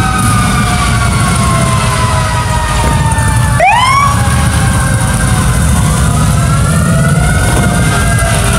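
Several emergency sirens wailing at once, their pitch slowly rising and falling, with one quick upward whoop about three and a half seconds in. Under them is the low rumble of motorcycle engines passing at parade pace.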